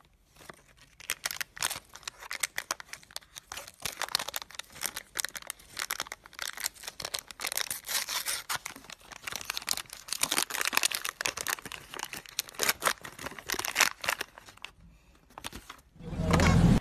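Plastic M&M's candy wrapper being torn open and crinkled by hand: a dense, continuous stream of crackles that stops about two seconds before the end. A brief, louder sound comes in right at the end.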